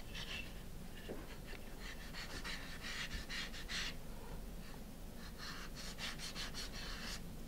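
Sandpaper on a sanding block rubbing across a stack of small balsa wood pieces by hand, in quick back-and-forth strokes that come in bursts, evening out the parts' edges.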